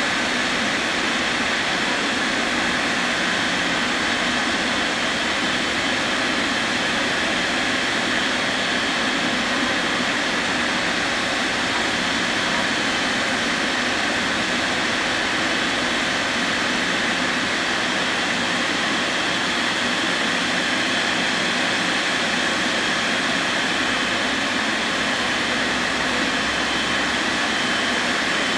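Jet engines of a Boeing 777 airliner idling on the apron after start-up, a steady rushing noise with a faint high whine.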